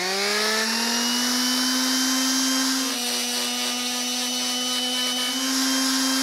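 Makita electric belt sander running at full speed with a steady high whine, sanding down a goat's overgrown hoof. It has just spun up at the start, and its pitch sags slightly between about three and five seconds in before climbing back.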